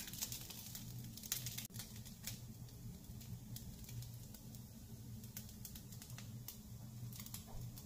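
Faint scattered clicks and light scrapes of a silicone spatula and serving utensils against a frying pan and ceramic plates as food is dished up, over a low steady hum.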